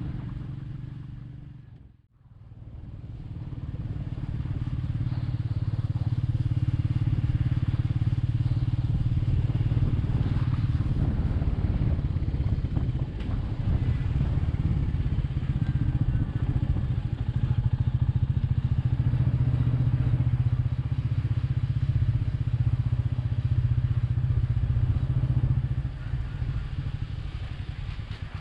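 Royal Enfield Meteor 350 single-cylinder engine running steadily while riding, with road and wind noise. The sound fades out briefly about two seconds in, then comes back.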